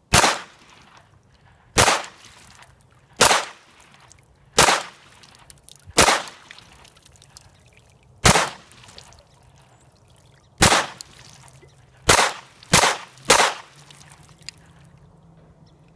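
Ten shots from an ATI GSG 1911 .22 LR pistol firing CCI Mini Mag rounds, spaced one to two seconds apart, the last three in quicker succession.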